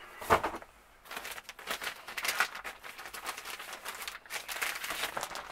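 Packaging being handled during an unboxing: wrapping and box parts rustling and crinkling, with many small clicks and scrapes.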